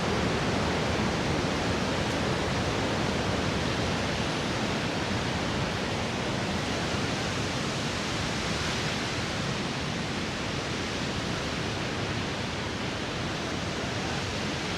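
Steady rush of a large waterfall, a dense even roar of falling water that eases slightly over the seconds.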